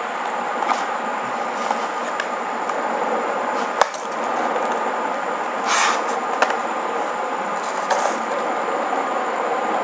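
Laptop's plastic back cover being pried open with a flat-blade screwdriver: scattered clicks and snaps as the screwdriver works the seam and the clips, the sharpest about four seconds in, over a steady background hiss.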